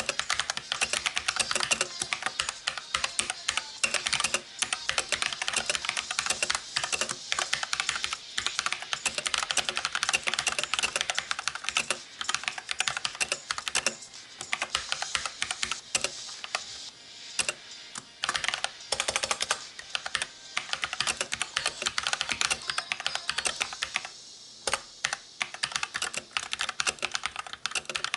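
Fast, continuous typing on an AUKEY full-size mechanical keyboard with red linear switches: a quick stream of key clacks with a couple of brief pauses. The keycap noise is a little loud, mostly from the keys bottoming out.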